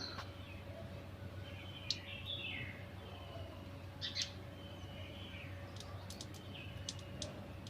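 Birds chirping now and then in the background, a few short chirps scattered through, over a faint steady hum.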